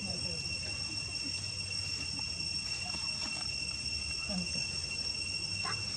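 Steady, high-pitched drone of insects, held at an even pitch.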